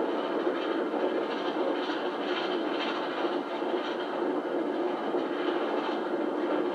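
Steam trains running at speed on parallel tracks, heard from a carriage window: a steady rumble with wheel clatter. It plays back thin, without deep bass, through a television speaker.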